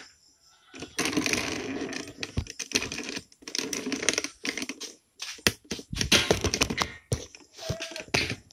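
Handling noise: a stretch of rustling about a second in, then a run of irregular clicks, taps and rattles.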